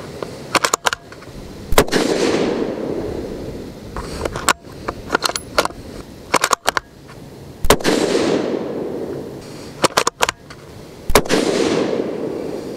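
Three .223 Remington rifle shots from a Ruger American Predator Gen 2 bolt-action fitted with its factory radial muzzle brake, about six and then three and a half seconds apart, each trailing a long rolling echo. Between the shots there are short clicks of the bolt being cycled.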